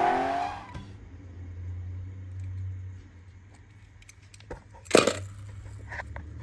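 A car engine revs up and fades away as the car drives off, within the first second. Then come small hard clinks and one sharp clack about five seconds in, from a die-cast toy car and plastic ball-pit balls being handled.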